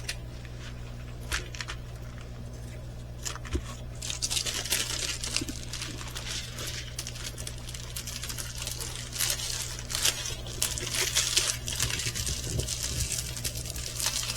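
Plastic packaging crinkling and rustling as it is handled, with a few light clicks before the rustling sets in about four seconds in.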